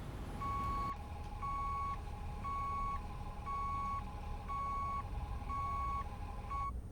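Electronic beeper sounding a single steady tone, seven even beeps about once a second, over a fainter continuous hum; it cuts off abruptly near the end.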